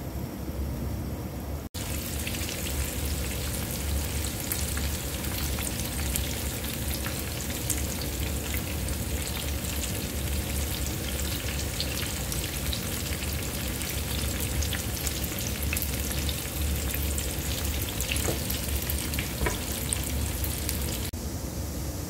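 Cubed eggplant frying in hot oil in a nonstick pan: a steady sizzle full of small crackling pops, with a spatula stirring through the pieces. Near the end, pieces of flatbread fry in the oil with the same sizzle.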